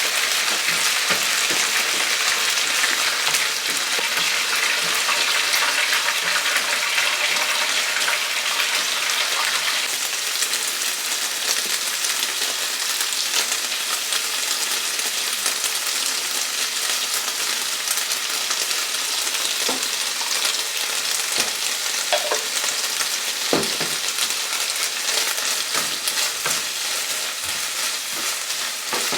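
Food frying in hot oil: a steady, dense sizzle and crackle, easing off slightly over time, with a few brief knocks in the last third.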